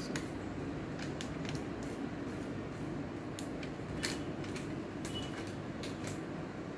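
Scattered light clicks and taps at irregular intervals over a steady low background hum, the sharpest click about four seconds in.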